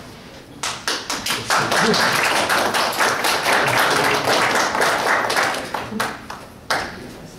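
Small audience of students applauding: a few scattered claps, then a burst of steady clapping that fades out, with one last clap near the end.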